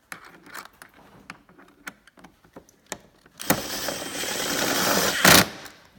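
Small handling clicks, then a power driver running for about two seconds to drive a T25 Torx screw into the snowmobile's panel. The run grows louder and ends with a short, louder burst as the screw seats.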